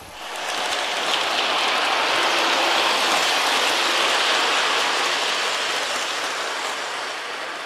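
A steady rushing hiss that swells in just after the start, holds, and slowly fades toward the end.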